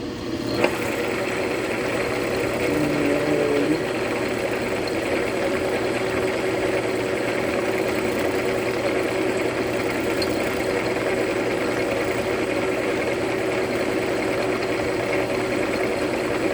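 Milling machine running steadily with its cutter taking cuts on a workpiece: an even machine hum with steady tones over a noisy haze, with a click about half a second in.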